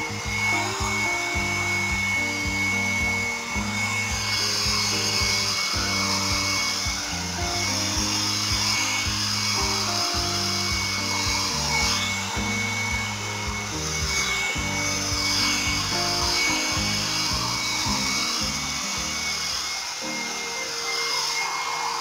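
Background instrumental music over a steady airy rush from a hand-held Nova hair dryer blowing on hair.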